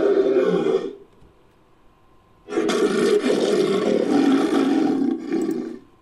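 Lion-like monster roar sound effect for a manticore. One roar cuts off about a second in; after a short pause a second, longer roar lasts about three seconds.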